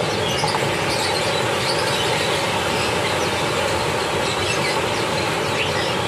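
Steady, even background din at a bird-market stall, with a faint high bird chirp or two over a constant hum.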